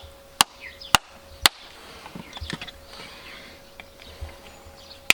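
Farrier's hammer striking in sharp, evenly paced blows about every half second, three inside the first second and a half, then stopping.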